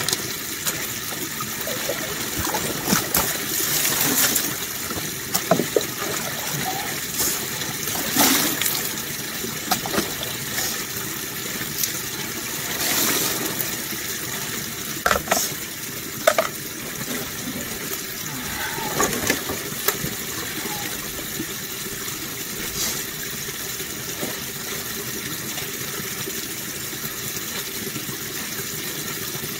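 Steady running water, with a handful of short splashes and knocks, the sharpest about halfway through, as a gold sluice box is rinsed out and its concentrates poured from a gold pan into a bucket.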